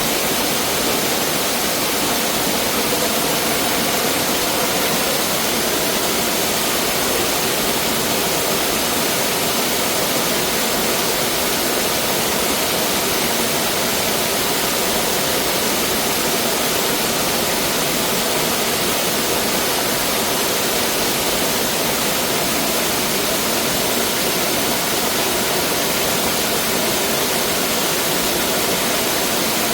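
Mountain valley stream rushing over rocks: a steady, even water noise.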